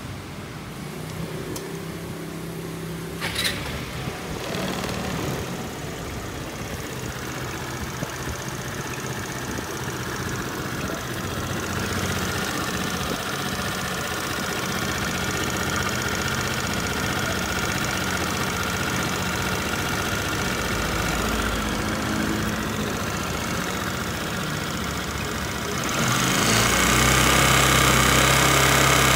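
Kymco Many scooter's engine and belt transmission running, the revs raised about twelve seconds in and again, louder, near the end. The abnormal transmission noise is from a rear pulley whose slide rails have run dry.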